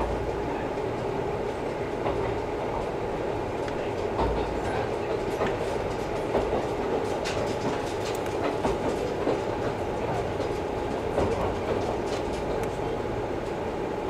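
Cabin running noise of a KiHa 11-100 diesel railcar under way: a steady rumble of the engine and wheels on the track, with scattered clicks as the wheels pass over rail joints.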